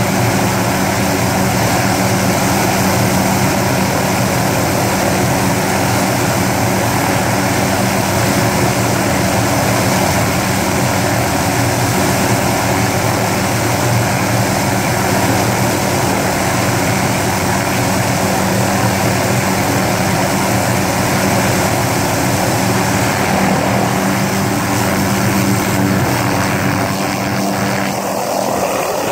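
Small helicopter running on the ground with its main rotor turning, a steady sound holding several constant tones. Near the end it lifts off and the sound changes.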